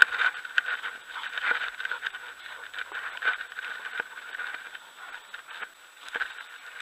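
Footsteps crunching on a dirt and gravel track, with irregular scraping and rustling from a body-worn camera on the move.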